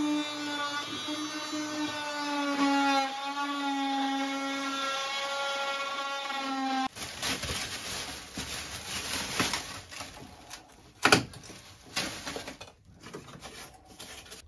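A corded oscillating multi-tool whines steadily as it cuts at the edge of an access opening, its pitch dipping slightly under load. About seven seconds in it stops abruptly, and plastic sheeting rustles with a few knocks, one sharp knock near the end.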